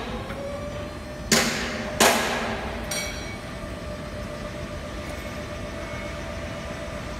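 Electric reach truck's hydraulic lift motor whining steadily as the mast raises the forks. Two loud ringing bangs come about a second and two seconds in, with a weaker one shortly after.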